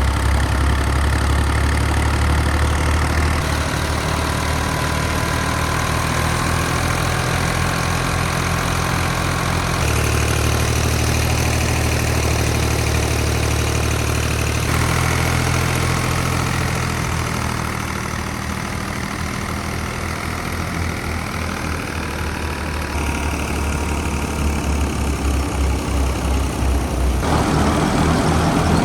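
Alghazi tractor's diesel engine running hard while driving a wheat thresher, a steady low engine drone with mechanical rattle over it. The sound changes abruptly a few times.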